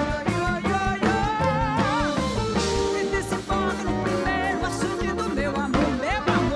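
Live band music with accordion, electric bass and drum kit, and a woman singing into a microphone over it.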